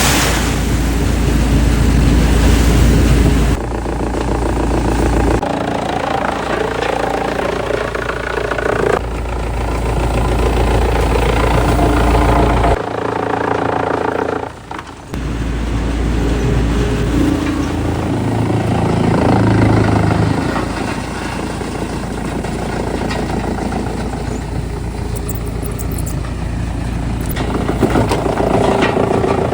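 Heavy machinery running, the sound changing abruptly every few seconds as one clip cuts to the next, with a brief dip in level about halfway through.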